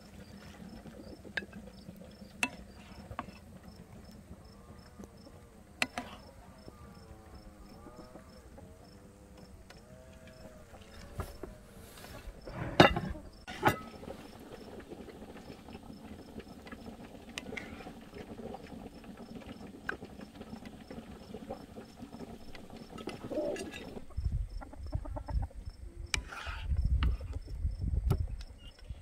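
Wooden spoon clinking and scraping against a clay serving platter and ceramic plates as stew is dished out, with two sharp clatters about 13 seconds in. Chickens give wavering clucking calls for several seconds early on, and a faint, evenly repeating high chirp sits underneath.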